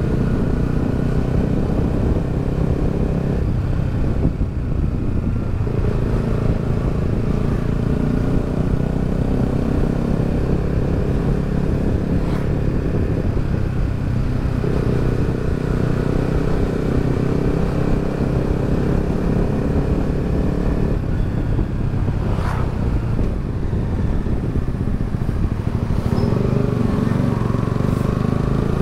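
Yamaha XSR 155's single-cylinder engine running at cruising speed under the rider. Its note steps in pitch a few times along the way.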